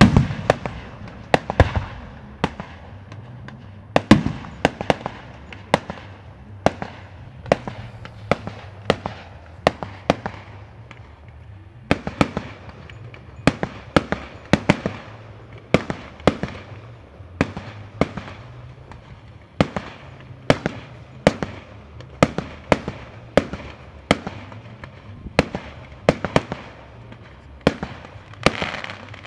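Fireworks display: a dense, irregular string of sharp bangs from aerial shells bursting, several a second, with the loudest booms in the first few seconds.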